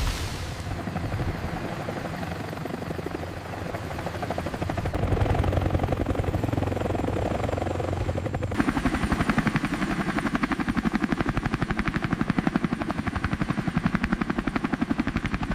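Helicopter rotor and engine running, at first a steady rumble. About halfway through it cuts sharply to a louder, fast, even beat of rotor-blade chop.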